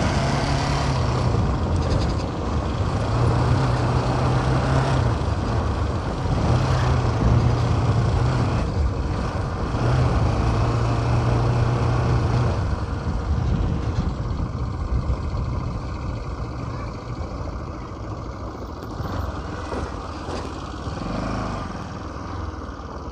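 Motorcycle engine running as it is ridden, its steady note coming and going in stretches over wind and road noise; it eases off and gets quieter about fourteen seconds in.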